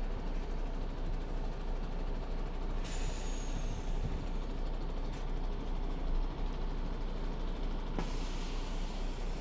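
Road traffic and wind on the microphone make a steady low rumble. A sharp hiss lasting about a second comes a few seconds in, and another begins near the end.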